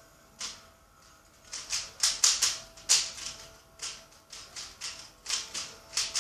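Rubik's cube being turned by hand: quick plastic clicks and clacks of the layers rotating, in irregular clusters, loudest about two to three seconds in.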